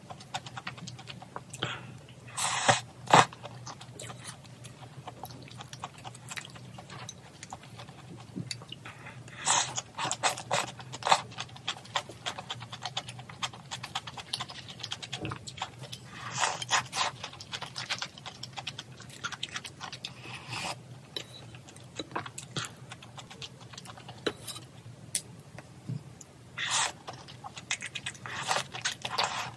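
Close-miked eating of malatang noodles: steady wet chewing with small mouth clicks, and four louder slurps spread through.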